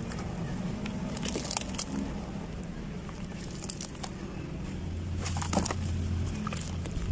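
Chunks of dried sand and cement crumbling, with scattered crunchy crackles over a low steady hum.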